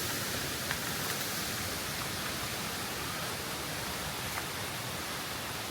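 Steady rushing of flowing, splashing water from a waterfall and stream.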